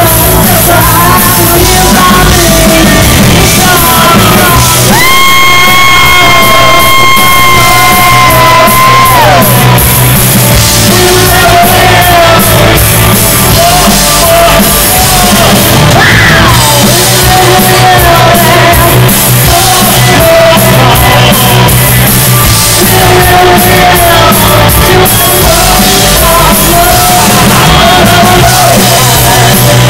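Live rock band playing loud: drums, electric guitars and a woman singing into a microphone. About five seconds in a long high note is held for some four seconds and then slides down.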